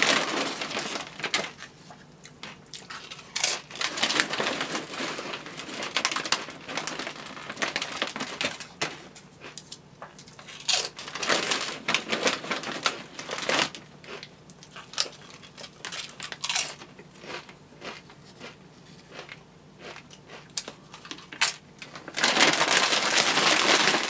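Close-up eating noise: a white food wrapper crinkling and rustling in the hands while food is chewed, in irregular bursts of crackling. Near the end the crinkling becomes a denser, louder stretch.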